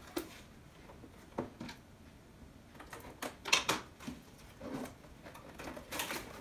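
Packaging being opened and handled by hand to take out the shuttle tubes: scattered light knocks and rustling, the loudest a little past three and a half seconds in and again near the end.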